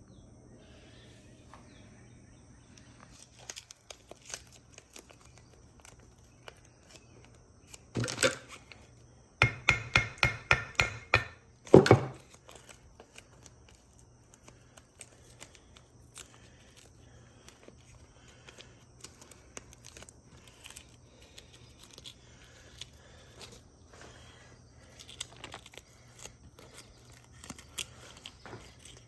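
Handling noises: a clatter about eight seconds in, then a quick run of about eight sharp knocks, one loud knock, and scattered light clicks. Under them run a faint steady hum and a high, steady insect trill.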